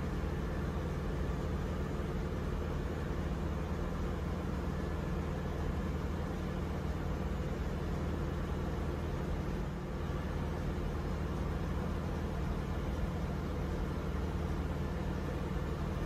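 Steady drone of ship's engine-room machinery running, with a constant low hum and no change in pitch.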